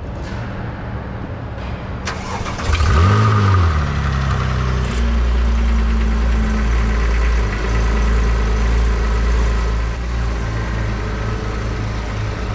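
Porsche 911 GT3 RS (997.1) 3.6-litre Mezger flat-six cold start. A click comes about two seconds in, then the engine catches with a short rev flare about three seconds in and settles into a steady idle.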